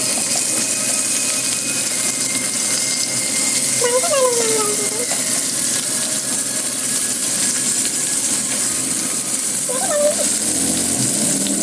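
Chicken pieces frying in hot oil: a steady, even sizzling hiss, with a brief voice twice.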